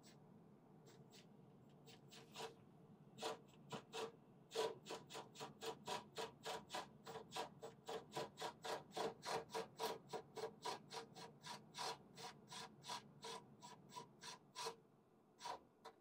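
Screwdriver driving the gas furnace's flame-sensor mounting screw back in, with a short click on each quick turning stroke. The clicks come slowly at first, then run steadily at about three a second, and stop just before the end.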